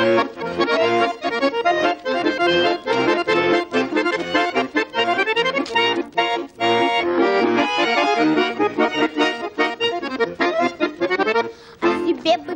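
Two button accordions (bayans) playing an instrumental break in a lively folk-style song: a quick melody with chords over a steady pulsing bass.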